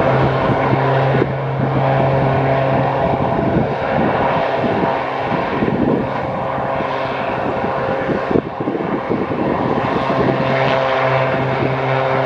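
Beechcraft Texan T1 turboprop trainers running on the runway, their Pratt & Whitney PT6A engines and propellers making a steady hum and drone as they taxi and line up. A strong low hum fades through the middle and comes back near the end.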